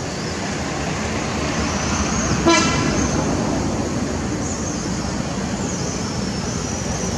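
Steady background noise of road traffic, with one brief pitched toot about two and a half seconds in.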